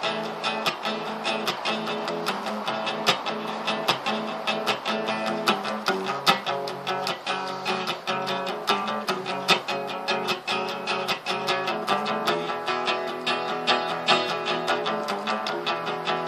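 Archtop acoustic guitar played solo: a steady, rhythmic stream of plucked notes and chords.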